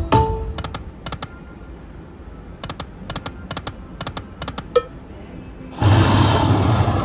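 Aristocrat Lightning Link (Tiki Fire) slot machine reels clicking to a stop, a quick pair of sharp ticks for each reel as they land one after another. Near the end a loud, noisy electronic sound effect starts and holds as the machine brings up its Lucky Chance Spin feature.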